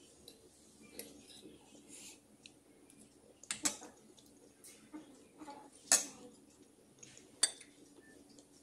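Metal fork and spoon clicking and scraping against plastic takeout containers and dishes while eating: scattered sharp clicks a second or two apart, the loudest about three and a half and six seconds in.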